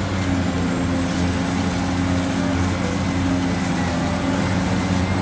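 Caterpillar 365C hydraulic excavator's diesel engine running steadily as the machine digs, a low, even hum.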